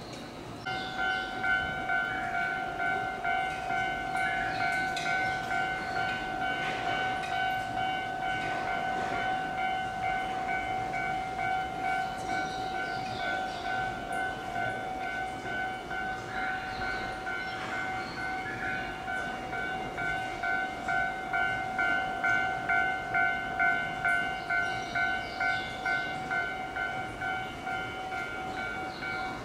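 A rail-side electronic warning tone rings continuously from about a second in, pulsing about twice a second, over low rail-yard noise.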